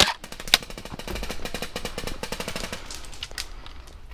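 Airsoft electric rifle, a Cyma CM040b AK, firing: a sharp shot at the start and another about half a second in, then a rapid full-auto burst of about two and a half seconds that stops shortly before the end.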